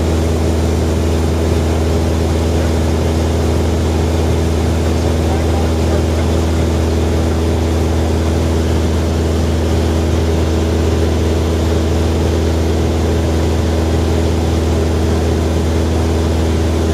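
Private plane's engine droning steadily in level flight, heard from inside the cabin: a constant low hum with a steady higher tone over rushing noise.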